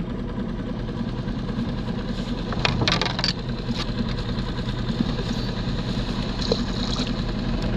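Small outboard motor idling steadily, a constant low hum, with a few sharp clicks about three seconds in.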